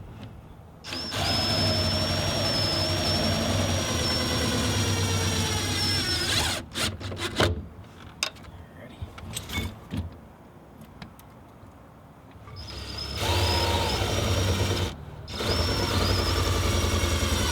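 Electric drill running in two long spells, a high steady whine that wavers in pitch as it takes load, likely driving screws or bolts to mount the inverter. A few sharp clicks come between the spells.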